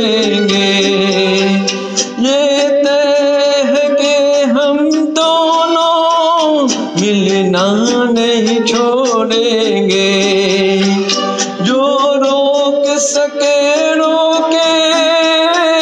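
Man singing a Hindi film song into a handheld karaoke microphone over a recorded backing track, holding long, wavering notes.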